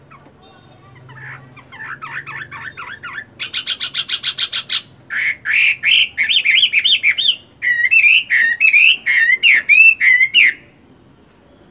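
Chinese hwamei singing a loud, varied song made of phrases of rapidly repeated notes. Each phrase has a different note, and the song grows louder as it goes. It starts about a second in, breaks off briefly, and stops near the end.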